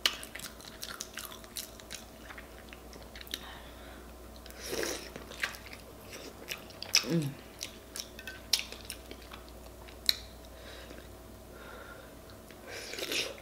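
Close-miked eating of soft boiled red potatoes coated in a butter sauce: wet chewing with many sharp lip-smacking clicks. There are two longer slurping sounds, about five seconds in and near the end.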